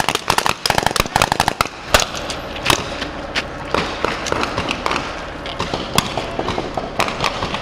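Gunfire: rapid bursts of automatic fire for the first second or two, then scattered single shots.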